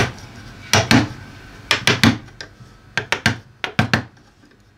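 A mallet tapping a quarter-inch chisel to pare a small notch out of a walnut board. About a dozen short, sharp knocks come at an uneven pace, often two or three close together.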